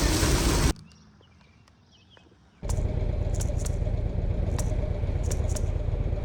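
Motorcycle riding noise: a steady rush of wind and engine. It drops away suddenly for about two seconds of near quiet, then comes back.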